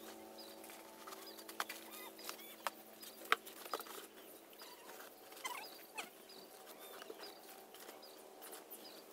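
Cardboard boxes and plastic bags of rice being handled and packed: rustling and crinkling with scattered light knocks and clicks, the sharpest about three seconds in.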